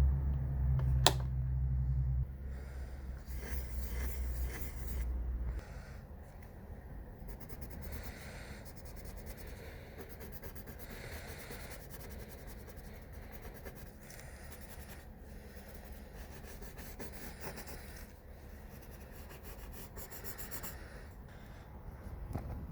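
Drawing strokes scratching and rubbing on paper, coming and going irregularly. A low hum sits under the first five seconds or so.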